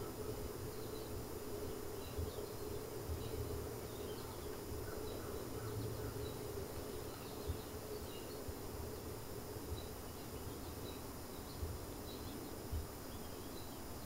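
Steady hum of a honey bee colony inside an observation hive. The colony is on the point of swarming, with virgin queens piping in their cells. Faint short high chirps are scattered through the hum, with a few soft knocks.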